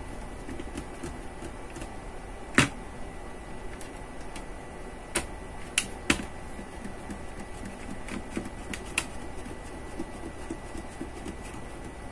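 Scattered sharp clicks and small taps of a screwdriver and fingers on the plastic case of a D-Link Wi-Fi router, the loudest click about two and a half seconds in, over a faint steady hum.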